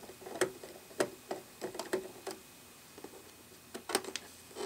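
Irregular small clicks and ticks of a Phillips screwdriver turning screws out of a projector's lamp-access cover. The clicks come in quick runs, stop for about a second, then a few more come near the end as fingers work the loosened cover.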